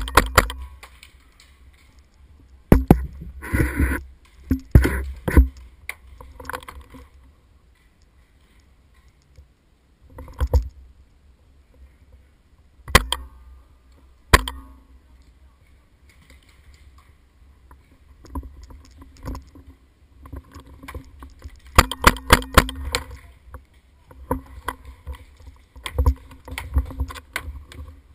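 Paintball markers firing: sharp pops, some single and some in rapid strings, the densest run about two thirds of the way in, over a low wind rumble on the microphone.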